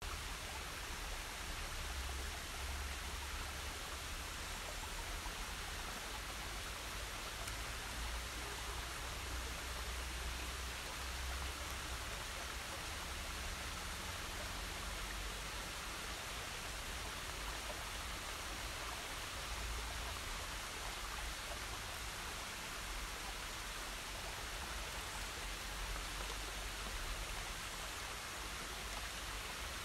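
Steady, even rushing noise of wet forest-floor ambience, with an uneven low rumble underneath.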